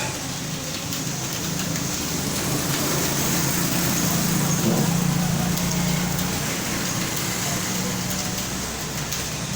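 Steady background rumble like road traffic, with a low engine hum that swells through the middle and then eases off.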